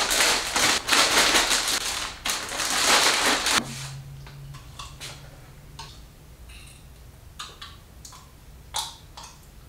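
Loud rattling, grinding noise from a small hand-held black container of snack mix for about three and a half seconds, with a short break about two seconds in. After that, scattered small clicks and quiet crunching of chewing.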